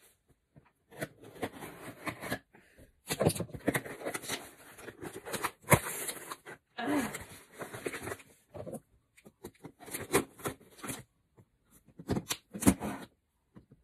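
USPS Priority Mail cardboard box and its paper being torn and cut open by hand, in irregular bursts of ripping and rustling with short pauses.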